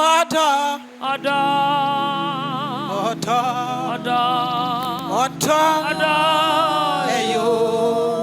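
Gospel worship song: a solo voice sings long held notes with vibrato. Sustained keyboard chords come in about a second in, and a deeper bass line joins about four seconds in.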